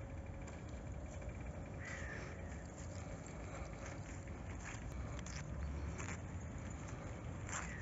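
Crows cawing several times over a steady low outdoor rumble.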